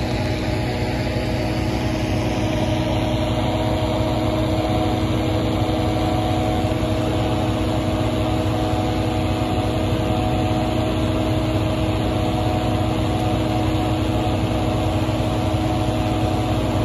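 Small petrol-engine inflator fan running steadily at constant speed, blowing air into a hot air balloon envelope on the ground.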